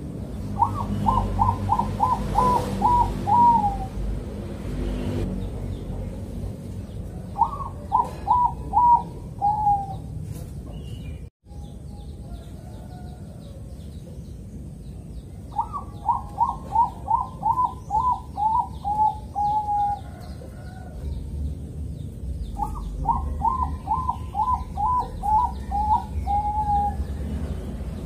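Caged Bangkok-type zebra dove (perkutut) cooing: four phrases of rapid, evenly spaced notes, the longer phrases with about a dozen notes, each ending on a lower, drawn-out note. Faint chirps of other small birds sound in the background.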